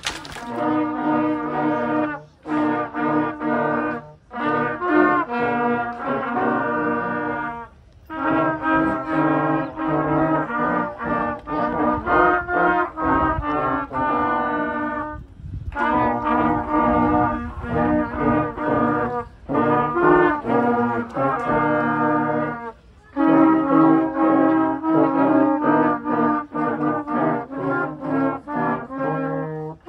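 Children's brass ensemble of trumpets, trombone and euphonium playing a tune together, in phrases broken by short pauses.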